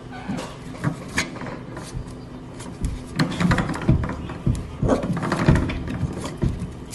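Spring doorstop at a baseboard twanging and rattling again and again as a corgi puppy paws and nudges it, with a run of quick knocks and springy thumps that come thickest in the second half.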